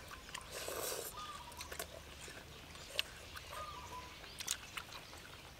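Quiet eating sounds: noodles slurped and chewed, with a noisy slurp about half a second to a second in and sharp clicks of chopsticks against plates. A short chirp sounds twice in the background.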